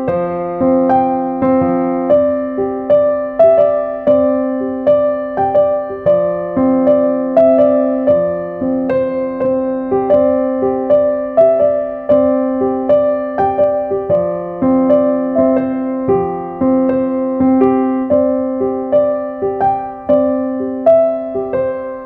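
Background music on electric piano: a repeating melody of short notes over held low chords.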